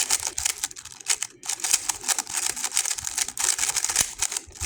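GAN 11 M Pro magnetic speedcube being turned fast during a solve: a rapid, continuous clatter of plastic layers clicking into place, with a couple of brief pauses.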